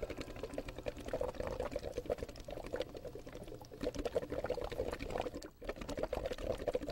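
Liquid bubbling rapidly and continuously, a hand-made Foley effect, breaking off briefly about five and a half seconds in.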